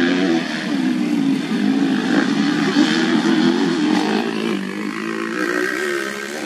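Motocross bike engines racing, their pitch rising and falling constantly as the riders work the throttle. The sound eases off a little near the end.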